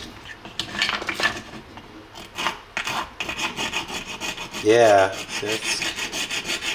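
A hand file rasping over 3D-printed plastic, smoothing its rough spots. It starts as scattered strokes, then from about halfway settles into quick, even back-and-forth strokes, several a second.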